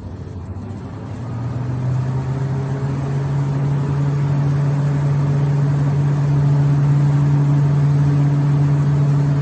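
Burner unit's motor running with a steady hum during its first start attempt, coming up to full level about a second in. The pressure-switch tube has been removed, so this start attempt fails.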